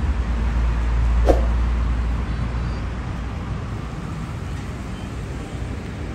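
Street traffic: a heavy vehicle's low rumble, loudest over the first couple of seconds and then fading, with one sharp click a little over a second in.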